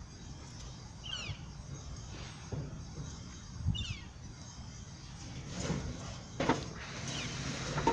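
A bird gives two short falling chirps a couple of seconds apart over a low steady hum, followed near the end by a few knocks and scrapes.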